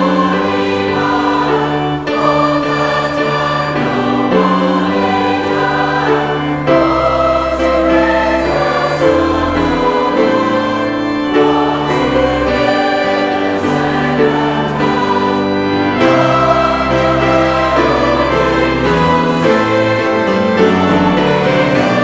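Choir singing with instrumental accompaniment: full held chords over a bass line that moves every second or two.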